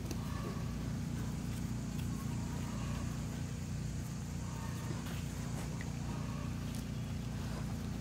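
A steady low hum, with faint scratches and ticks of gloved hands digging through loose, dry soil.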